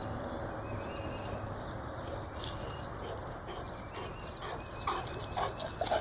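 Steady outdoor background noise; about four and a half seconds in, a dog starts panting in short, quick breaths as it comes back with the ball.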